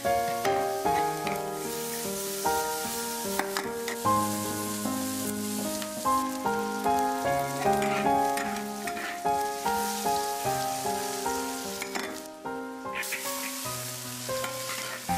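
Diced cured pork sizzling as it is stir-fried in a wok, with a metal spatula scraping and knocking against the pan. The sizzle cuts out for about a second near the end, then returns. Background music with a gentle, slow melody plays over it throughout.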